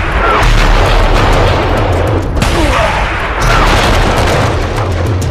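Loud, dense soundtrack mix of music and booming effects over a heavy low rumble.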